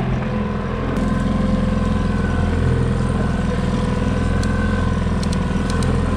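Boat engine running steadily at trolling speed, an even hum heard from on board. A few faint ticks near the end.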